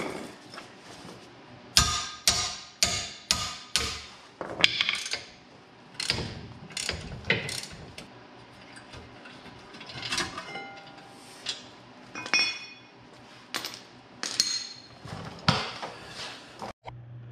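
Ratchet wrench clicking in short strokes as the rear brake caliper bracket bolts are backed out, with metal clinks and knocks as the bracket is handled and pulled off the rotor.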